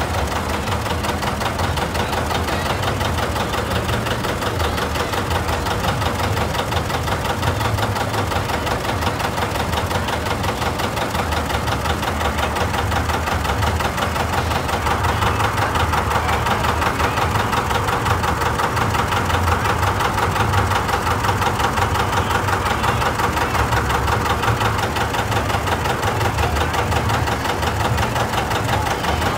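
John Deere 720 tractor's two-cylinder engine running steadily at low speed with an even beat.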